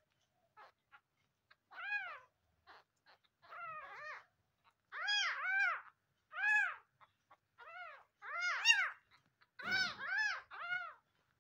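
Young orphaned kittens mewing again and again, about a dozen short, thin calls that each rise and fall in pitch, some in quick pairs or threes. A brief soft thud sounds about ten seconds in.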